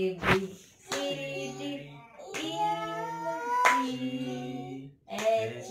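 A woman singing a song in long held notes, with a few hand claps between them.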